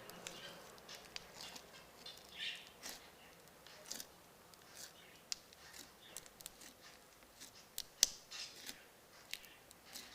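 Crunchy slime being pressed and squeezed by hand, giving irregular sticky pops, clicks and crackles, a sharp pop about eight seconds in.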